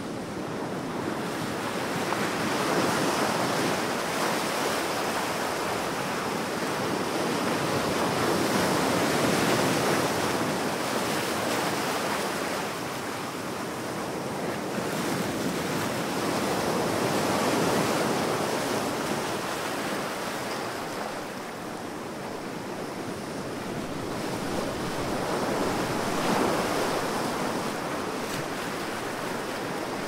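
Ocean waves breaking and washing in, in slow swells that build and fall away every several seconds.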